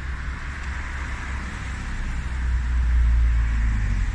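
Street traffic: a road vehicle driving past, its low rumble swelling to a peak about three seconds in.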